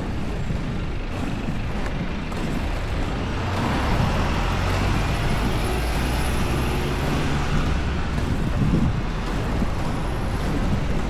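Steady street road noise: a continuous rumble of traffic and wheels rolling on tarmac.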